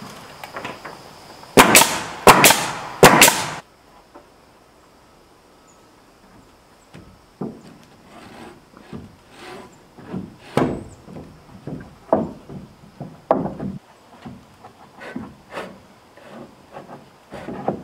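Pneumatic nail gun firing three nails into a wooden soffit board in quick succession, sharp loud bangs about a second and a half to three seconds in. After that, softer irregular knocks and taps of boards being worked into place.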